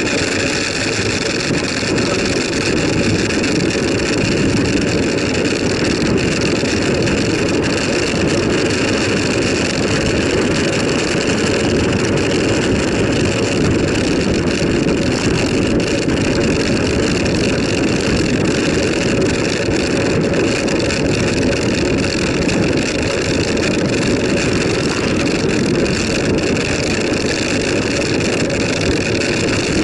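Steady wind rush on the microphone with tyre and road noise from a bicycle being ridden at speed. The loud even noise hardly changes throughout.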